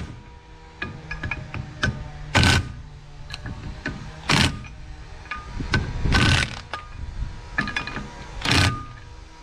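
Cordless DeWalt impact driver running the rotor-to-hub bolts home on a brake rotor, in about five short hammering bursts roughly two seconds apart.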